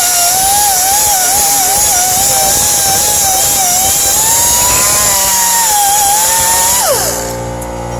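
Pneumatic air tool running at high speed, cleaning out the rough bore of a trailing-arm bushing mount. Its whine wavers as it bears on the metal, then drops sharply in pitch about seven seconds in as the tool slows.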